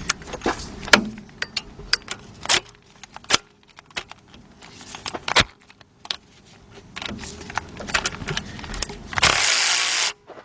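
Hand tools clinking and clicking against metal in an engine bay as a 14 mm bolt on the alternator bracket is worked loose: scattered sharp metallic knocks with short pauses. A steady rasping burst lasting about a second comes near the end.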